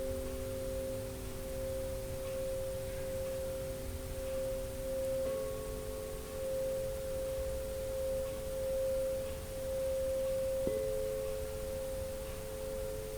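Soft, slow meditation background music: a few sustained pure tones held together as a drone-like chord, which moves to new notes about five seconds in and again about eleven seconds in.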